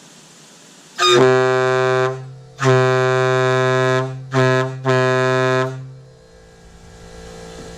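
Single-bell Nathan K-1LLL air horn sounding a deep, tugboat-like tone in four blasts: two long, one short, then another long.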